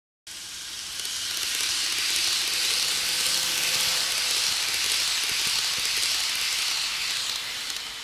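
Kato N-scale E233 series model train running past on the track: a steady, hissy rumble of its wheels and motor with a faint whine, swelling a little in the middle as it passes. It starts and stops abruptly.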